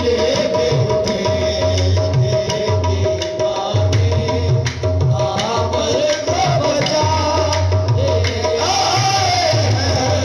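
Live qawwali-style devotional music: a man singing into a microphone over a steady hand-drum beat and a held note, heard loud through a PA loudspeaker.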